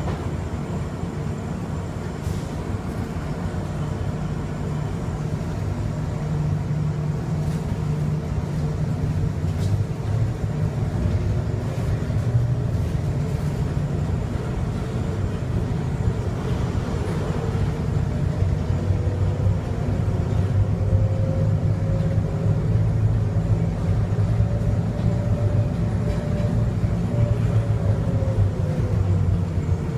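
Onboard running noise of a Bombardier Innovia APM 100 rubber-tyred people mover: a steady low rumble of the tyres on the guideway, with a faint motor whine that rises a little past the middle and falls again near the end.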